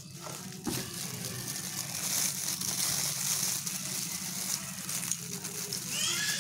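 Plastic bag and bubble wrap crinkling and rustling as hands pull out and handle a bagged bundle of cables, with a single knock under a second in.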